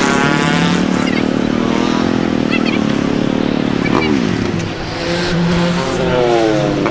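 Street traffic with motorcycle and car engines running and changing pitch. One vehicle drops sharply in pitch about four seconds in, and an engine climbs in pitch near the end.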